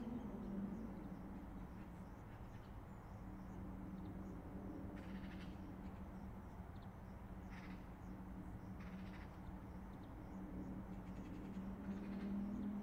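Steady low rumble and hum of distant highway traffic, with a few short animal calls over it, one about five seconds in and others near the middle and end.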